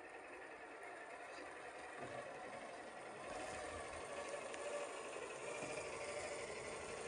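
Two Traxxas TRX-4 RC crawlers running on Deep-Terrain Traxx track units, with a steady whir from their electric motors, gears and tracks. The sound grows louder from about three seconds in as they crawl up close.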